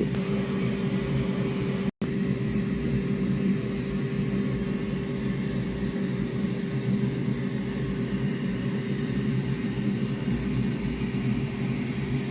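Steady machine hum with several low steady tones under an even whir, cutting out for an instant about two seconds in.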